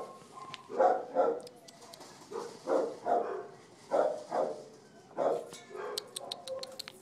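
A young brown and white Welsh corgi mix dog barking, short barks often in pairs about once a second. Near the end there is a quick run of sharp clicks.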